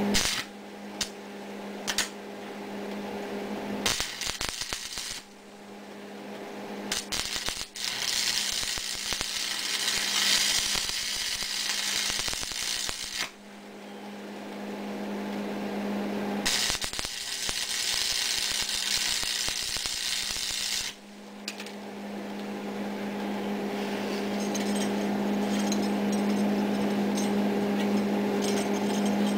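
Stick welder arc-welding the steel steering gear shaft: a few short strikes as the arc is started, then the arc crackles and hisses in two long runs of several seconds each. A steady hum lies under it all.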